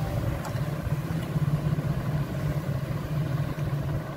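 Steady low mechanical hum, with a few faint light clicks.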